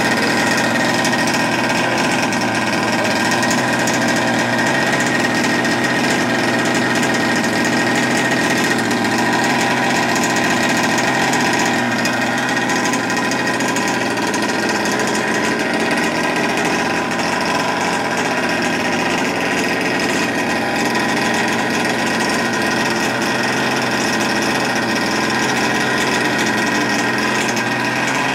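OBR full-mod 57cc twin-cylinder two-stroke engine of a 1/5-scale RC buggy, idling steadily. It is running rich, not yet run in and its carbs not yet fine-tuned.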